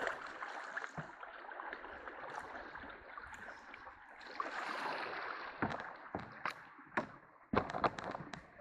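Steady rush of small river rapids, with a swell of splashing about halfway through as the canoe is paddled toward shore, then several sharp knocks near the end.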